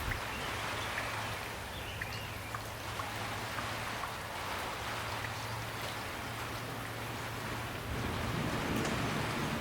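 Steady rain falling, a continuous hiss with scattered drop ticks. A low rumble swells in about eight seconds in.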